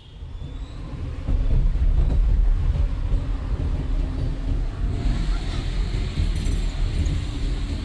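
Steady low rumble of a moving vehicle with wind and road noise, fading in over the first second.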